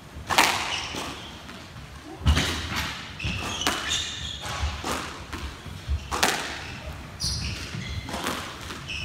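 Squash rally: the ball cracks off the rackets and echoes off the front and side walls, a sharp hit every second or so, with short high squeaks of court shoes on the wooden floor between the strokes.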